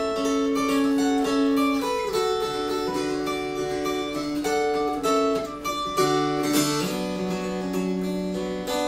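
Mountain dulcimer playing an instrumental melody, the notes changing over steady sustained drone tones.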